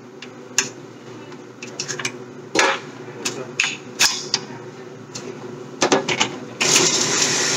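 A dozen or so irregular sharp clicks and knocks, some in quick clusters. Near the end a steady rushing noise sets in suddenly.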